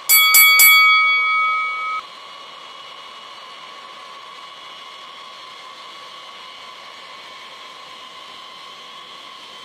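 A bell-like chime opens with a few quick clicks and rings for about two seconds, fading away. After it comes a fainter steady hiss with a high whine: the jet engines of a taxiing Boeing B-52 Stratofortress.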